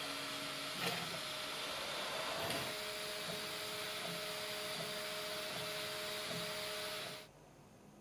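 3D printer running a print: a steady whir and hiss from the hotend cooling fan with a held motor whine, a second whining tone joining about three seconds in, and a couple of faint ticks. It all cuts off abruptly about seven seconds in.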